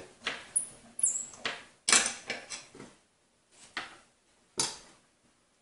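Small metal parts of an Arctic Z1 Pro monitor arm's clamp base clicking and clinking as a fitted piece is worked off by hand: several sharp, irregular clicks and light rattles, some with a brief high metallic ring near the start.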